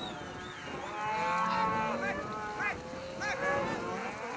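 Several cattle mooing, their calls overlapping and bending up and down in pitch.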